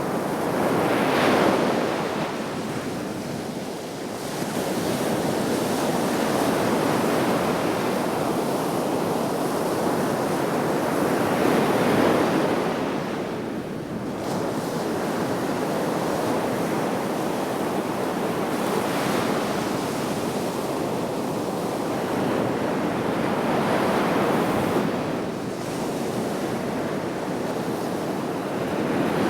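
Sea waves breaking and washing on the shore, with swells roughly every five to ten seconds over a steady surf hiss, and some wind on the microphone.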